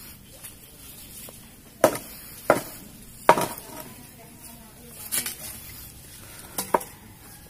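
A stick struck down against the ground, making sharp knocks at irregular spacing: three loud hits between about two and three and a half seconds in, a few softer ones later, and a quick double near the end.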